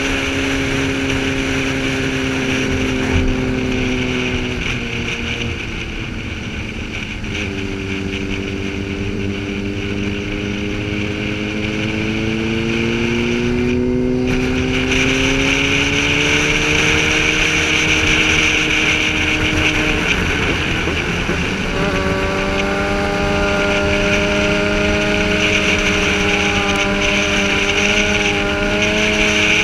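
On-board sportbike engine running hard through the gears. Its pitch drops at shifts about four and seven seconds in, climbs steadily, then drops again about two-thirds of the way through and holds fairly level, over a steady rush of wind noise.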